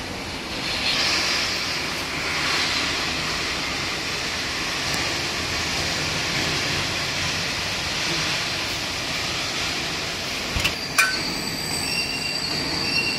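BKT-60T pipe welding turning roll running, its rollers and helical gear drive turning a pipe with a steady rolling, grinding noise. A couple of sharp knocks come about eleven seconds in.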